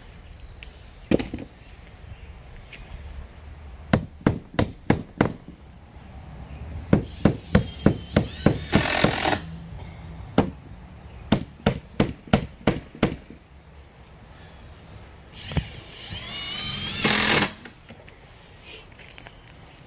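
Hammer blows on wood and nails: several runs of sharp strikes, a few a second, broken by two longer scraping stretches, one about nine seconds in and one near the end.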